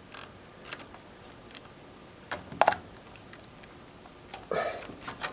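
Scattered light clicks and scrapes of multimeter test probes being worked into the slots of a wall outlet, the sharpest click a little under three seconds in.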